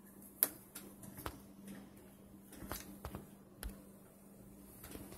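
Scattered light clicks and taps from hands handling a Dell T5500 workstation motherboard around the chipset fan's cable and connector, the sharpest about half a second in, over a faint steady hum.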